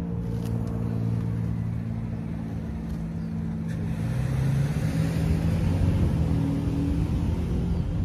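An engine running steadily, rising a little in pitch and loudness about halfway through.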